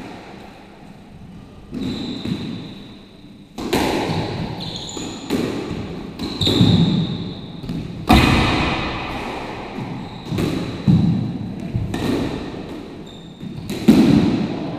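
Squash rally: the ball cracks off rackets and walls about every one to two seconds, each hit ringing around the enclosed court. Shoes squeak briefly on the hardwood floor between hits.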